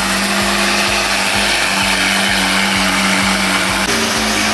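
Lamborghini Aventador SV's V12 engine idling steadily at a high idle, just after starting, with the idle stepping up slightly near the end.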